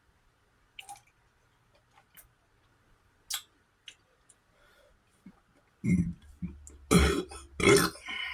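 A few faint clicks, then a man burping loudly two or three times near the end.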